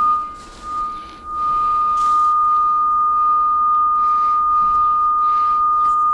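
Cable locator receiver, a Radiodetection RD8200, sounding a steady high-pitched tone as it picks up the signal from the transmitter clamped on the cable drop. The tone wavers in loudness for about the first second, then holds level.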